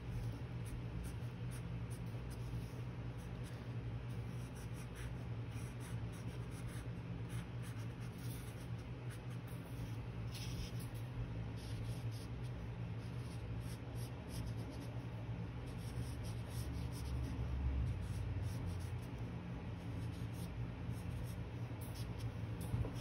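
Colouring strokes on watercolour-painted paper: a drawing tip scratching in short, irregular strokes over a steady low hum.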